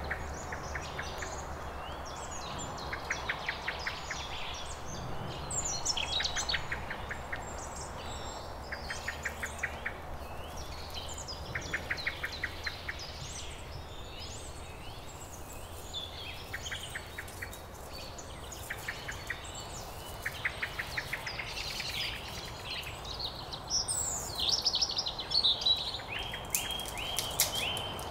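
Songbirds chirping and whistling throughout, with short rattling trills repeated every few seconds. Near the end come crisp, papery crackles as a garlic clove is peeled by hand.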